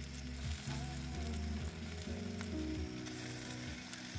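Sizzling of food cooking on a Kamado Joe ceramic charcoal grill, a steady hiss, under background music with a stepping bass line.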